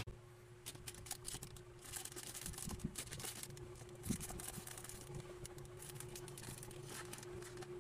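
Faint rustling and light clicks of hands handling small plastic minifigure pieces, over a faint steady hum.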